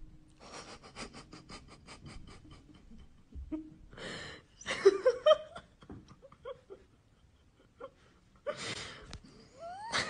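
Tabby cat licking with its tongue out: a quick run of wet smacking clicks, about six a second, for the first few seconds. Louder breathy bursts follow about four to five seconds in.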